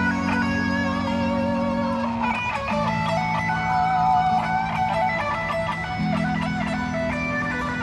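Semi-hollow electric guitar played through a small portable amplifier: a melody line over low held notes that change every couple of seconds.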